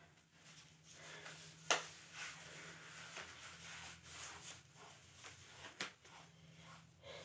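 Faint sounds of a person exercising: breath noise and feet shuffling on a mat, with two sharp taps, one about two seconds in and one near the end, over a low steady hum.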